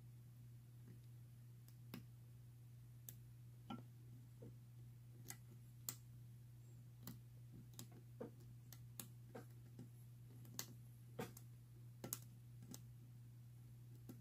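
Faint, irregular clicks of a lock pick working the pins of a Best padlock's interchangeable core, about one click a second, over a steady low hum.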